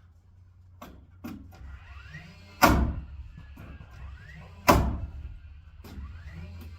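Nails being driven into framing lumber: two loud, sharp bangs about two seconds apart, with a few lighter knocks before them.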